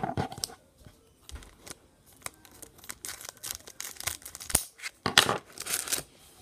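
Foil Pokémon card booster-pack wrappers crinkling and rustling as they are handled, in scattered short crackles, with a sharp burst at the start and another cluster about five seconds in.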